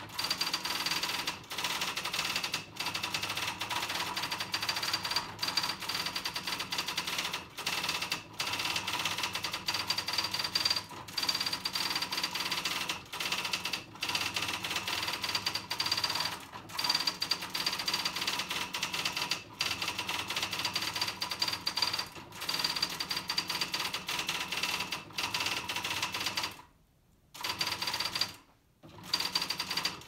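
1988 IBM electric typewriter typing stored text out automatically: a fast, unbroken rattle of strikes with brief pauses every second or two, and two longer stops of about a second near the end.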